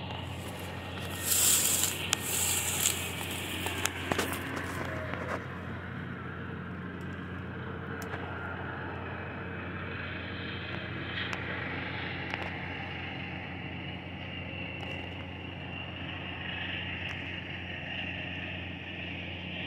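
Heavy earth-moving machinery in a strip mine, running as a steady low mechanical drone. About one to three seconds in, a louder burst of crackling and scraping noise cuts across it.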